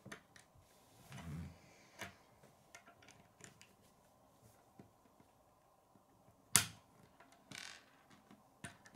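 Plastic K'nex pieces clicking and knocking on a wooden tabletop as they are handled and pressed together, with a few brief rustles and one loud sharp click past the middle.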